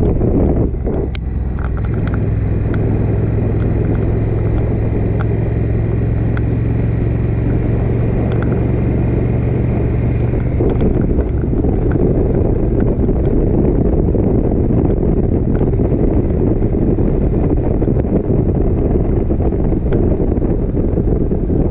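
Motorcycle engine running at a steady cruise at about 50 km/h, under a heavy rush of riding wind on the microphone. A steady engine hum stands out for the first half, then sinks into the wind noise after about ten seconds.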